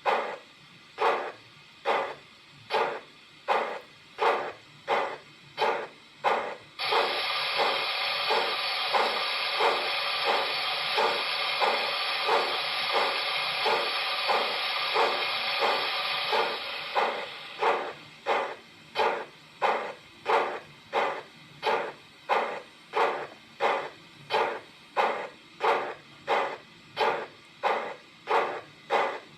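Digital steam sound of a class 94 tank locomotive from an ESU LokSound 5 XL decoder, played through a model's loudspeaker: even exhaust chuffs at about one and a half a second throughout. A loud steady steam hiss joins them about seven seconds in and fades out about ten seconds later.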